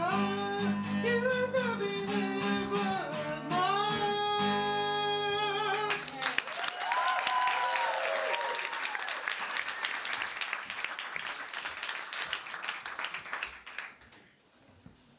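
A man sings with a strummed acoustic guitar, and the song ends about six seconds in. An audience then claps, with one whoop, and the applause dies away near the end.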